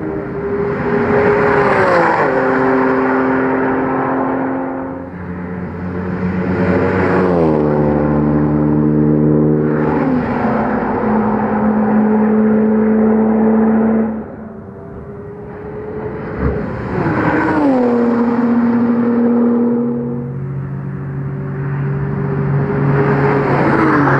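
Cars passing at speed one after another, several times over. Each engine note holds steady, then drops sharply in pitch as the car goes by.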